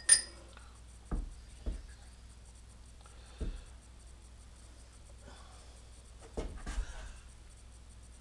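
Metal handling sounds on a granite surface plate. A bright metal clink comes right at the start, then a few dull knocks, then a short clatter of knocks and scraping a bit past halfway as the heavy dividing head is shifted and turned around on the plate.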